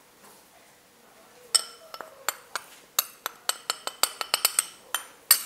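A metal spoon clinking again and again against a glass bowl as whole wheat flour is spooned and scraped out of it. The bright, ringing clinks start about a second and a half in and come in a quick, uneven run of well over a dozen.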